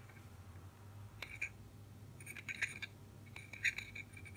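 Light metallic clicks and clinks as a bare wire is soldered straight onto a Jones connector socket pin, coming in small clusters over a steady low hum.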